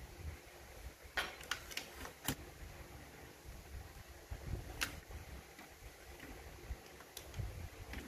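Sharp clicks and light knocks of plastic and metal as a cassette deck's tape mechanism is handled and worked with a screwdriver, over a low rumble of handling. There is a quick run of four or five clicks about a second in, then single clicks near five and seven seconds.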